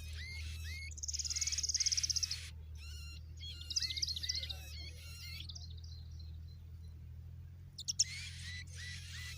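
Baby birds chirping in short, high, repeated calls, with a fast high trill about a second in. The calls fall away in the middle of the stretch and start again near the end, over a steady low hum.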